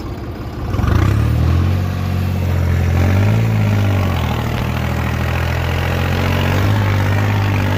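Modified New Holland tractor's diesel engine working under load, pulling a heavy disc harrow through ploughed soil. The engine gets louder about a second in, then holds a steady note.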